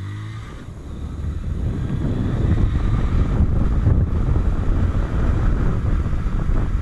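TVS Star City 110 cc single-cylinder motorcycle riding and picking up speed, its engine pitch rising right at the start, then buried under wind buffeting the microphone, which grows steadily louder.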